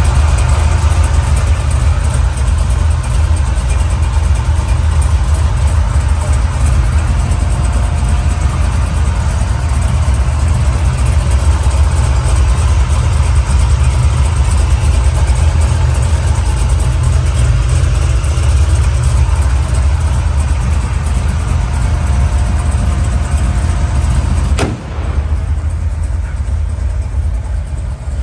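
A 502 cubic inch Chevrolet big-block V8 with headers and dual exhaust, idling with a steady low rumble. About 25 seconds in the sound drops suddenly and carries on quieter.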